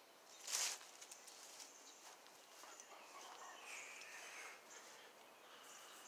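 Faint outdoor ambience with birds chirping, and a brief scuffing rush about half a second in, as of a step.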